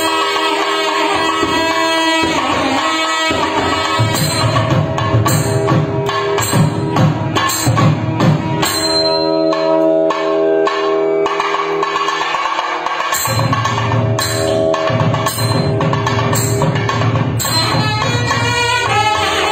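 Two nadhaswarams, South Indian double-reed pipes, playing a Carnatic melody together, with two thavil barrel drums beating sharp strokes underneath. Midway the drums fall back for a few seconds under a long held note, then come in again.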